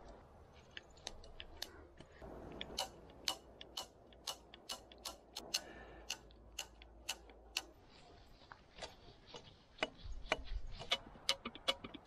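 Hand-pumped grease gun working grease into a grease nipple on the bulldozer's undercarriage: a run of sharp clicks, about two a second, coming faster near the end.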